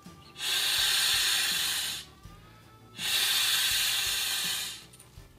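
Two long breaths blown by mouth into an inflatable bag through a conventional valve, each a hiss of rushing air lasting about a second and a half, with a pause between them.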